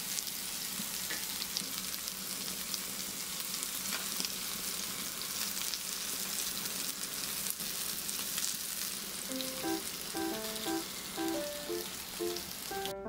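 Pork belly slices sizzling on a hot ridged grill pan: a steady frying hiss with frequent small pops. Light piano-like music comes in about three-quarters of the way through, and the sizzling cuts off right at the end.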